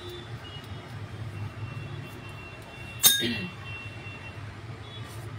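A single sharp clink of kitchenware about three seconds in, ringing briefly, over a low steady hum.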